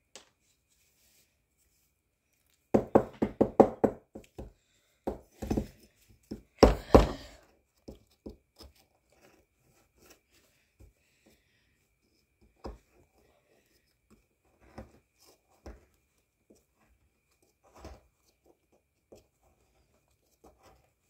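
A small plastic pick chipping and scraping at a plaster dig block. A dense run of sharp knocks and scrapes starts about three seconds in, then scattered single taps follow.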